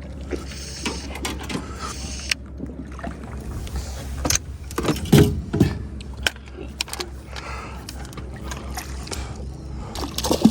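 Small boat on a lake: water lapping and small knocks against the boat over a steady low rumble, with a few louder knocks or splashes about halfway through.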